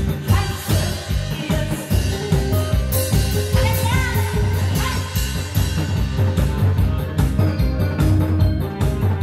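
Live Korean trot song: a woman sings into a microphone through the PA, over amplified music with a heavy steady drum beat.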